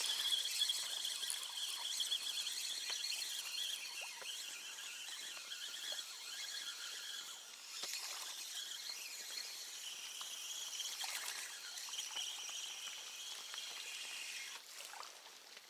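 Steady high-pitched chirping of insects and birds, with a few faint clicks and rustles.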